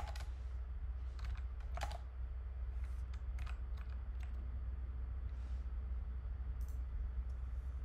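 Computer keyboard keys being pressed: a scattering of separate, uneven keystrokes rather than fast continuous typing, over a steady low hum.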